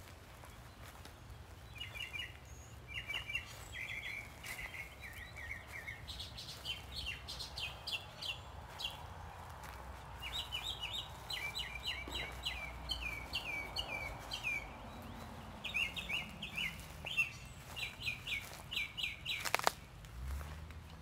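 A songbird singing in quick runs of repeated chirping notes, phrase after phrase, over a faint low rumble; a single sharp click comes near the end.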